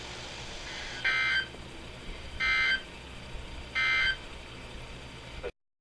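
Emergency Alert System end-of-message data bursts: three short, raspy two-tone digital bursts about a second and a half apart, marking the end of the alert, over a faint radio hiss. The audio cuts to silence near the end.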